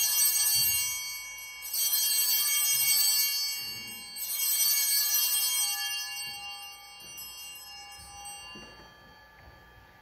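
Altar bells (a cluster of small sanctus bells) shaken three times, a couple of seconds apart, each ring jingling and then fading. They mark the elevation of the chalice just after its consecration at Mass.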